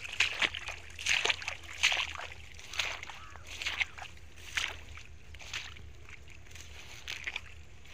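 Footsteps swishing through dry grass and low weeds, a rustle with each step about once a second, growing fainter and sparser near the end.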